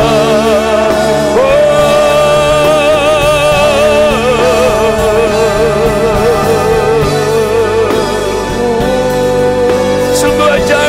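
Gospel worship music: several singers hold long notes with wide vibrato, without words, over steady instrumental accompaniment.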